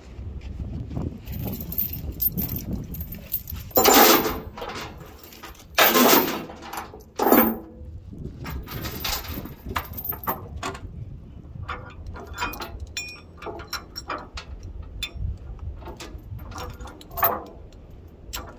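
Steel tie-down chain rattling and clanking as it is handled while chaining a load to a trailer, with three louder clanks about four, six and seven seconds in and lighter clinks after.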